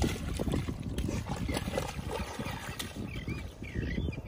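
A puppy's front paws digging fast in wet pluff mud, a quick irregular run of wet slaps and splatters. Near the end come a few faint high, wavering squeaks.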